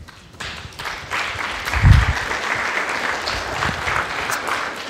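Audience applauding, building up about half a second in and then holding steady. A single low thump about two seconds in is the loudest moment.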